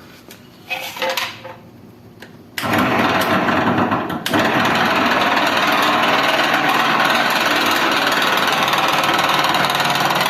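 Window AC fan motor switched on about two and a half seconds in, running with a loud, harsh, steady noise that steps up again about four seconds in. The noise comes from the motor's bearings, which are worn out.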